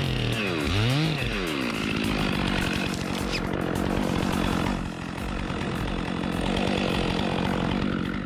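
Two-stroke chainsaw revving up and down twice, then held steady at high revs for several seconds.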